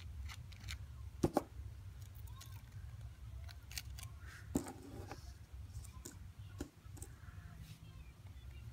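Scattered small metal clicks and taps as screws on a Shimano Calais baitcasting reel are loosened with a small Phillips screwdriver, the loudest about a second in, over a low steady hum.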